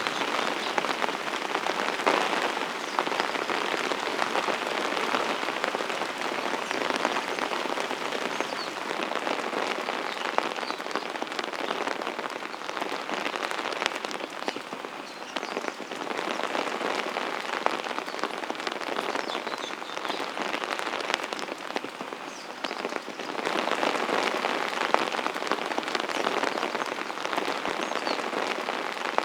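Steady mountain rain falling: a dense patter of fine drops hitting surfaces, swelling slightly for a few seconds near the end.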